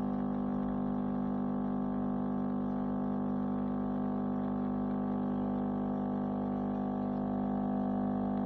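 Bean-to-cup coffee machine's pump running with a steady hum as it brews coffee into the cup, cutting off suddenly at the end when the cappuccino is done.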